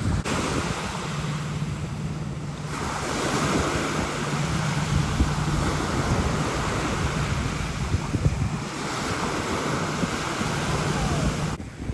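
Gulf surf washing onto the beach, with wind buffeting the microphone. The wash swells about three seconds in and eases again near nine seconds, and a low hum comes and goes underneath.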